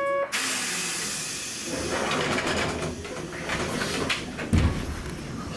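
Hankai Tramway tram: a chime cuts off, then a sudden hiss of compressed air from the tram's pneumatic system. It is followed by the rumble and clatter of the tram running, with a low thump about four and a half seconds in.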